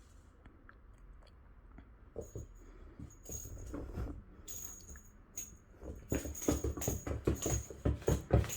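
A cat's paws pattering, thumping and scratching on the floor as it spins in circles, faster and louder from about six seconds in.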